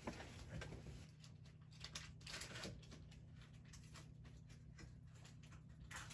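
Near silence: room tone with a few faint rustles and clicks, like handling paper takeout packaging.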